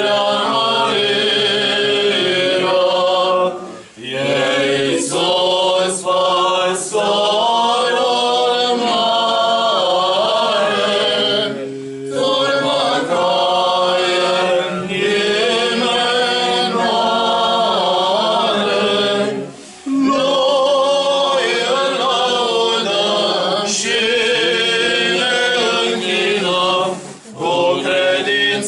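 Church choir singing unaccompanied Orthodox liturgical chant, in long held phrases with brief breaks about every eight seconds.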